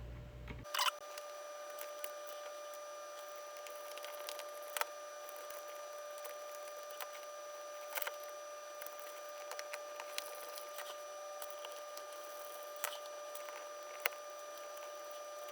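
Scattered light clicks and taps of small parts being handled as a circuit board is fitted back into a plastic PKE meter prop's housing, over a faint steady high whine.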